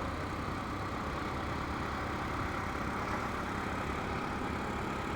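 Motorcycle riding at steady speed: engine hum under constant wind noise buffeting a helmet mic tucked into the chin curtain.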